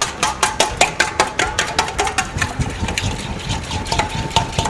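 Egg being beaten briskly in a stainless steel mixing bowl, the beater clicking rapidly against the metal at about five or six strokes a second, the bowl ringing faintly.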